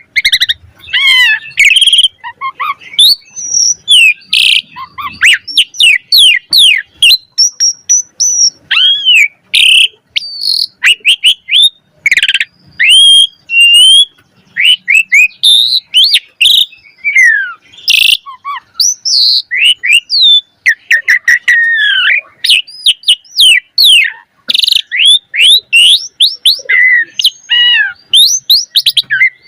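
Asian pied starling (jalak suren) singing in full voice: a rapid, almost unbroken run of varied sweeping whistles and chirps mixed with sharp clicks, a song rich in borrowed phrases.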